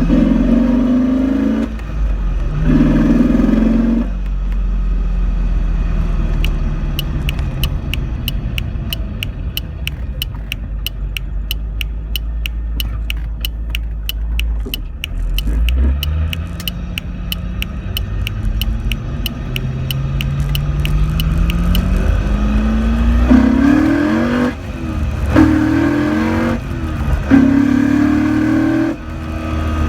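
Corvette C5's V8 engine revved, settling to a steadier run, then revved up and blipped again near the end. Through the steady middle stretch runs an even series of sharp ticks, about three a second. This is an unexplained noise that appeared after Hinson motor mounts were installed.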